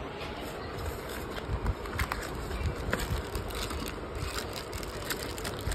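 A small cardboard box being handled and opened by hand, with scraping and rustling of the cardboard and packaging and a few light clicks over a steady background hiss.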